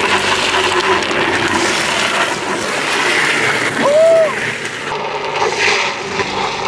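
Drift trikes' hard plastic rear wheels sliding and scraping over asphalt, a steady rough hiss, with a short rising-and-falling tone about four seconds in.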